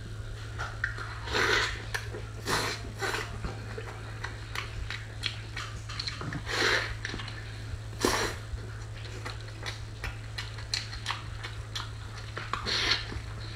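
Close-up eating sounds of a person biting into and chewing red-braised pork belly wrapped in a lettuce leaf, with irregular wet bites and chews, several of them louder. A steady low hum runs underneath.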